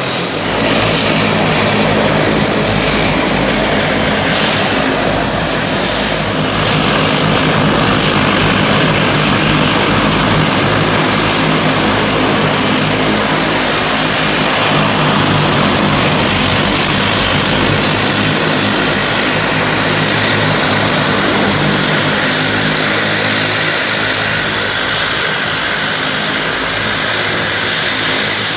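Bombardier Dash 8 Q300's twin turboprop engines running at taxi power, close by: a steady, loud propeller drone with a thin high turbine whine above it.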